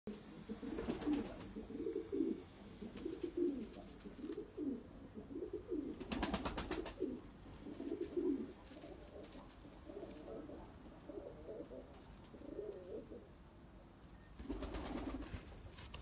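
Domestic fancy pigeon cooing: a run of low, rolling coos repeated one after another, with a few brief rattling noises about a second in, around six seconds and near the end.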